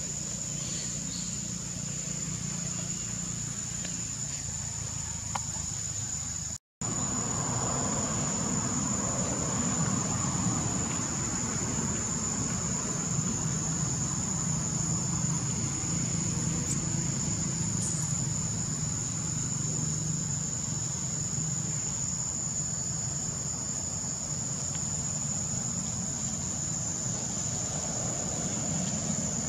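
Steady high-pitched drone of insects, over a low background rumble; the sound cuts out briefly about seven seconds in.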